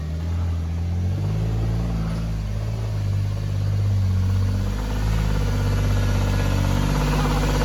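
Toyota 4Runner engine running at low revs as the truck crawls an off-road trail: a steady low hum that steps up slightly in pitch about a second in.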